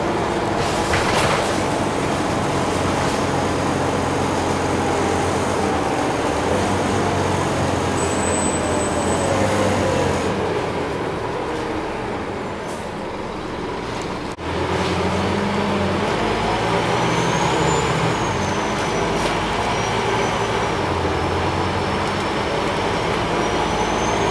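Scania OmniCity bus heard from inside the saloon: the diesel engine and drivetrain run as the bus slows, with a falling whine. It goes quieter for a few seconds, then a sharp knock comes and the engine pulls away louder.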